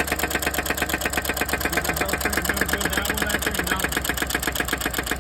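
The 6.2-litre V8 of a 2017 Cadillac Escalade idling with a valve cover off, its valvetrain making a rapid, even ticking over the engine's steady running. The engine knock comes from a bad rear lifter, whose valve spring is barely moving.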